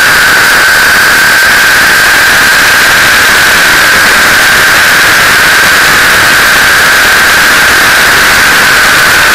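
T-Rex 600 radio-controlled helicopter in flight, heard from a camera on its landing skid: a loud, steady rushing noise from the rotors and airflow with a high whine that wavers slightly in pitch.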